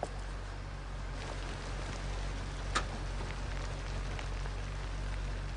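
Steady rain falling, over a low steady hum, with one sharp tick about halfway through.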